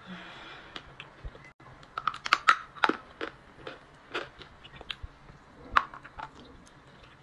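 Close-up biting and chewing of a hard piece of edible clay: a run of sharp, separate crunches, densest about two to three seconds in, with a few more near four and six seconds.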